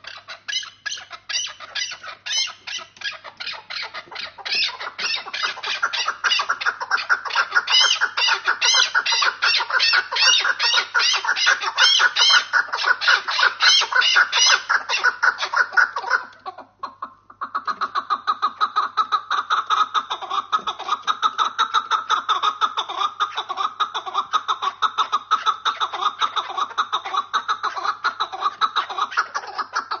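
Caged partridges calling in a rapid, continuous run of repeated notes, breaking off briefly about halfway through before starting again.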